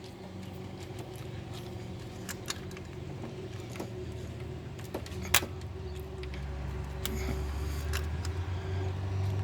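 Small metallic clicks and taps as the camshaft actuator solenoid is wiggled and prised out of the engine, with one sharper click about five seconds in. Under it runs a steady low vehicle engine hum that grows louder from about six seconds in.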